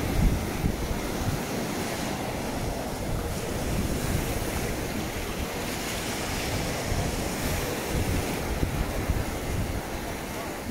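Small surf washing steadily onto a sandy beach, with wind buffeting the microphone as a gusty low rumble.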